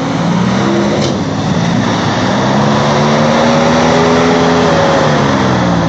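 Jeep Wrangler TJ engine revving: the pitch climbs gradually, holds high for a couple of seconds, then eases off near the end.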